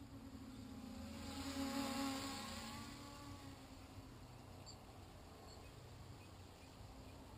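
Flyduino nanoquad's small motors and propellers buzzing in flight. The buzz swells louder and shifts in pitch as the quad passes close, about one to two seconds in, then settles back to a steady hum.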